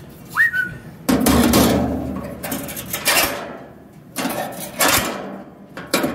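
Cast-iron wok being set down into a steel burner stand: a loud scrape and clatter about a second in, then several sharp clanks as it is shifted into place. A short high squeak comes just before.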